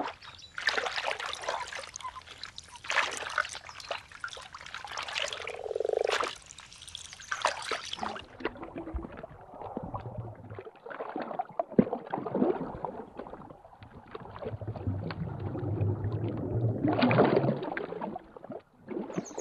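Water splashing, sloshing and gurgling in irregular surges as an otter swims and hunts in shallow water. The first eight seconds are brighter and hissier; after that the sound is duller, with another strong surge near the end.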